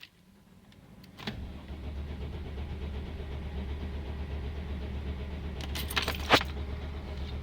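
Mercedes Sprinter van's engine in a hard-start attempt: after a click about a second in, a steady low drone runs for about six seconds and cuts off near the end, with a few light clicks shortly before it stops.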